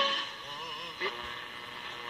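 AM broadcast sound from a 1950s Bulova All-American Five tube radio's speaker, a voice wavering in pitch, dropping sharply in level just after the start as the stiff knob is turned. There is a short click about a second in, then steady tones.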